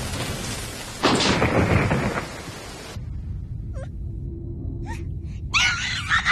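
Anime sound effects: a loud, noisy rush that swells sharply about a second in and drops away at about three seconds. A softer low rumble follows, with two short gasps, and a girl's voice cries out near the end.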